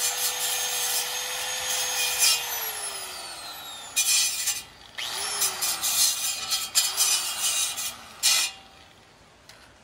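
Grinder cleaning up the freshly cut edge of a 3.5-inch steel exhaust pipe, with loud grinding noise over the motor's whine. The grinder winds down about two seconds in, then is run again in a few short bursts, each spinning up and winding down, and stops near the end.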